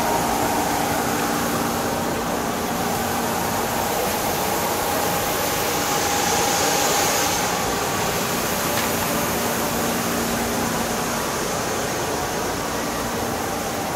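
Steady hum of parked electric commuter trains' rooftop air-conditioning and auxiliary equipment, with a few faint steady tones, a little louder about halfway through.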